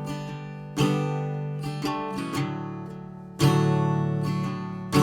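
Background song with no singing here: a few strummed guitar chords, each ringing out and fading before the next.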